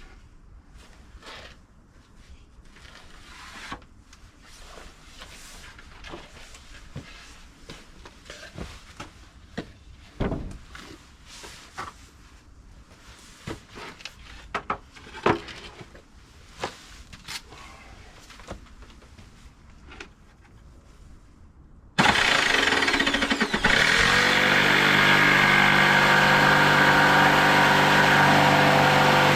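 Scattered light knocks and clicks of things being handled, then about three quarters of the way in a motor starts abruptly, its pitch settling down over a second or two into a loud steady running.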